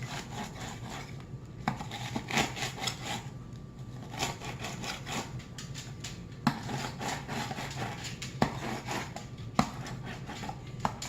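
Pizza-cutter-style herb cutter worked back and forth over stacked basil leaves on a cutting board: repeated scraping strokes with a few sharp knocks of the blade on the board.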